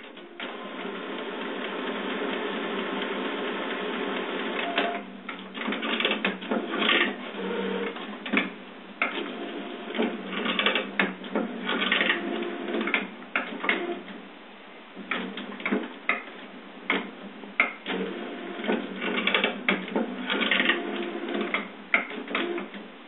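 HP printer mechanism making odd noises: a steady whirring grind for about five seconds, then irregular bursts of grinding with clicks and short pauses between them.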